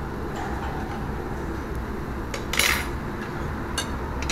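Spoons and tableware clinking against ceramic bowls and the steel hot pot: a few light clicks and one louder, brief clatter a little past halfway, over a steady low hum.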